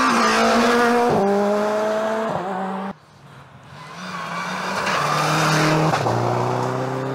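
Two rally cars at full throttle on a gravel stage. First a Ford Fiesta rally car's engine climbs in pitch and drops with quick upshifts about one and two and a half seconds in. It cuts off abruptly about three seconds in, and a Subaru Impreza's engine grows louder as the car approaches and passes, changing up a gear about six seconds in.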